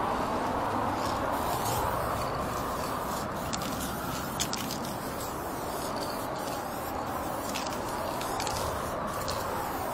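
Aerosol spray paint can hissing steadily as paint is sprayed onto a corrugated metal wall, the hiss slowly swelling and fading as the can moves, with a few faint clicks.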